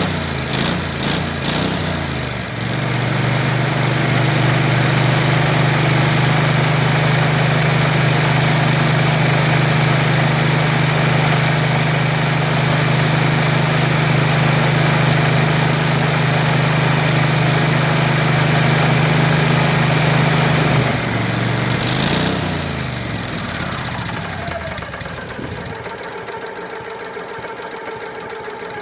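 Landmaster LM650 utility vehicle's engine, which keeps dying out, running: uneven revs for the first couple of seconds, then a long steady run. About 21 seconds in the revs sag and fall away, and it carries on at a lower, quieter speed.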